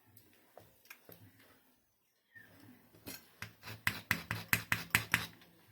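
A small hand tool working on the bulb's parts: a few faint clicks, then a quick run of about a dozen sharp snips and clicks over two seconds or so, over a faint steady low hum.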